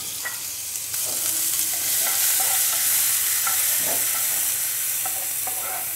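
Chopped onions frying in hot mustard oil in a nonstick pan: a steady sizzle that swells about a second in, with a wooden spatula scraping as it stirs them.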